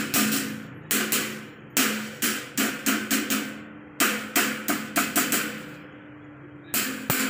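Hammer tapping on a pedestal fan's metal guard while it is fitted, in irregular quick clusters of two to four sharp knocks. The knocks pause for about a second near the end, with a steady low hum underneath.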